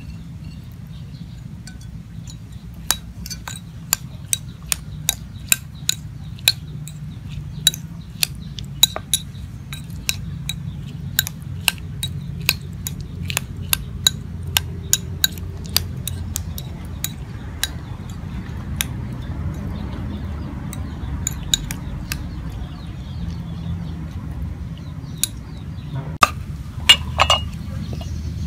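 Metal spoon clinking against a small ceramic bowl while sliced garlic is stirred into chili sauce, about two sharp clinks a second, thinning out after the middle. A few louder knocks come near the end.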